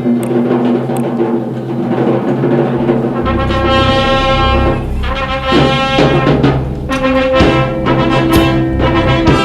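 Orchestra playing with brass and timpani: sustained trumpet and trombone chords, with a deep low part coming in about three seconds in.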